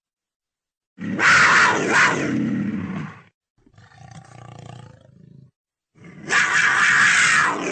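Leopard roaring: two loud calls of about two seconds each, with a quieter, lower sound between them.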